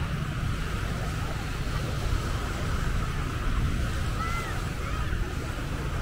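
Steady beach ambience: surf washing with wind rumbling on the microphone, and a brief faint high chirp about four seconds in.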